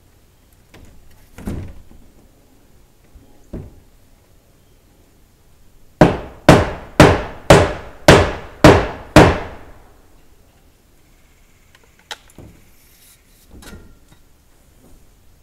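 Hammer blows: seven sharp strikes in quick succession, about two a second, each ringing briefly, with a few softer knocks before and after.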